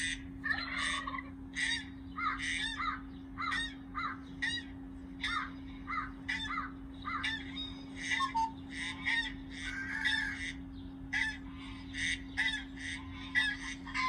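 Recorded bird calls played through a smartphone speaker: a dense run of short, repeated calls, about two a second, over a steady low hum.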